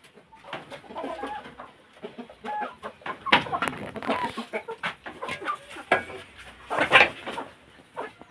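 A flock of domestic hens clucking and calling. The calls come in quick short runs, with two louder calls, one about three seconds in and one near the end.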